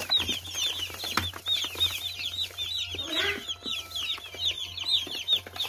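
A box full of day-old broiler chicks peeping nonstop: a dense chorus of short, high cheeps, each falling in pitch, overlapping one another.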